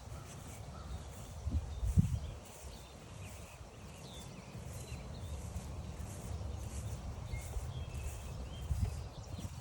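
Footsteps walking along a trail, with low thuds, the loudest about two seconds in, over a low rumble. Small songbird chirps sound faintly here and there.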